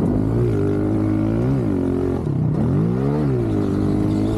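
Honda CRF125 pit bike's single-cylinder four-stroke engine heard from the rider's helmet, revving up and dropping back twice as he rides the dirt track: the pitch climbs to a peak about a second and a half in, falls away sharply, then climbs to a second peak about three seconds in and falls again.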